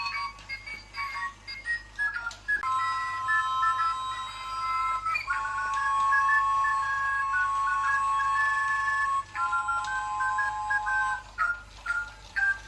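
A tinny electronic melody of simple beeping notes, quick and short at first, then long held two-note chords through the middle, and short notes again near the end.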